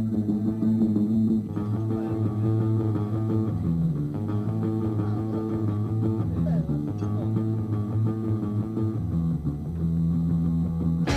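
Music with bass and guitar playing held notes that change every second or two.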